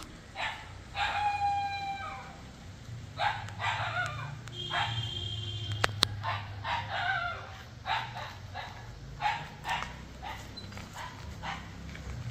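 A dog barking over and over in short bursts, with a rooster crowing about a second in.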